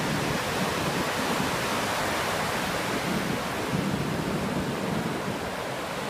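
Ocean surf breaking on a sandy beach, a steady rushing noise, with wind gusting on the microphone.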